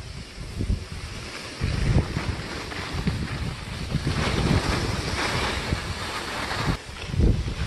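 Wind buffeting the microphone of a camera moving fast down a ski slope, over the steady hiss and scrape of sliding on packed snow. The hiss swells about four seconds in, and the noise drops briefly about a second before the end.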